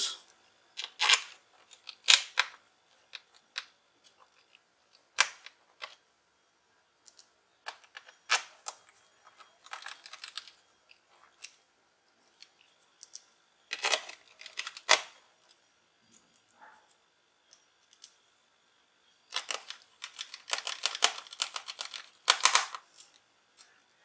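Small screwdriver driving screws into a laptop's plastic bottom case: short bursts of clicking and scraping, separated by pauses of a second or several, with the busiest stretch near the end.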